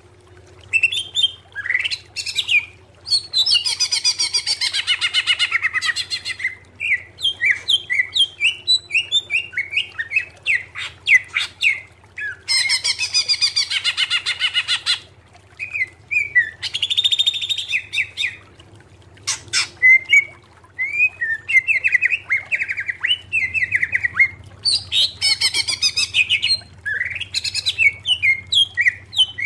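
Male green leafbird (cucak ijo) singing a loud, varied song of quick chirping notes, broken four times by fast rattling trills that last about two seconds each. A steady low hum runs underneath.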